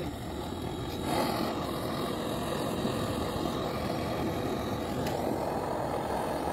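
Handheld gas torch on a red canister burning with a steady rushing hiss while brazing copper capillary tubing. It grows louder about a second in, as the flame is opened up.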